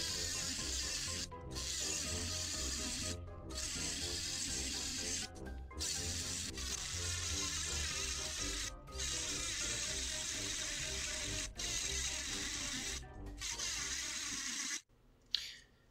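Small handheld rotary tool grinding through the glass envelope of a vacuum tube near its base: a steady grind broken by brief pauses every second or two. It stops abruptly about a second before the end, followed by a couple of clicks.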